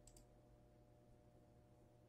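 Near silence with a faint low electrical hum, and a computer mouse double-clicking once near the start.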